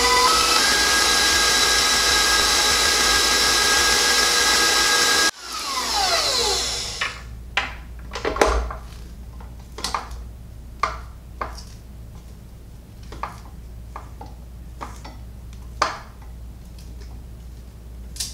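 Electric stand mixer running fast with a steady whine, beating stiff cream cheese and powdered sugar. About five seconds in the motor cuts off and winds down with a falling whine. After that a utensil scrapes and taps against the metal bowl in short, separate strokes.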